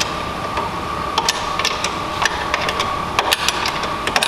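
Irregular plastic clicks and taps from hands working the trim and fittings of a car's convertible-top compartment lid panel, over a steady high-pitched hum.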